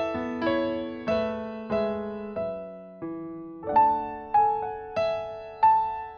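Background piano music: a gentle melody of single struck notes over chords, each note fading before the next.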